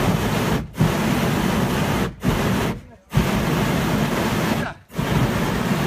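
Hot air balloon's propane burner firing in repeated blasts, about five in all: loud, steady rushing flame noise, each blast lasting a second or two, with brief cut-offs between them.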